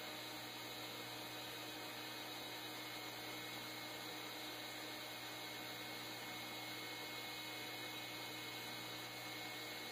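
Steady faint hiss with a low electrical hum underneath, unchanging throughout: recording noise and room tone, with no distinct sound events.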